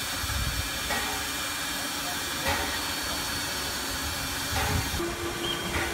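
Steam locomotive E 3/3 tank engine moving slowly, with a steady hiss of escaping steam around its cylinders and a soft beat about every one and a half seconds.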